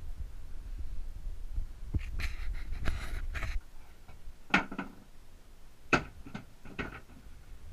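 Low rumbling handling and wind noise on an action camera, then a few short knocks and clatters.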